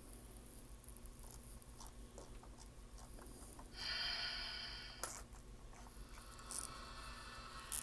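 HO scale Bowser locomotive chassis running on test track over a dead spot on keep-alive power, with a faint mechanical whir. About four seconds in a louder sound of several steady tones lasts about a second. Sharp clicks and a fainter steady tone follow.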